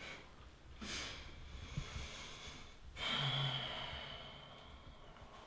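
A man breathing out heavily through the nose, twice: softly about a second in, then harder about three seconds in with a short low hum. A faint high ringing tone dies away after the second breath.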